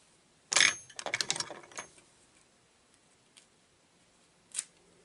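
Small hard fly-tying tools being handled on the bench. There is a sharp clack about half a second in, with a faint metallic ring. A second of quick light clicking and rattling follows, then one more click near the end.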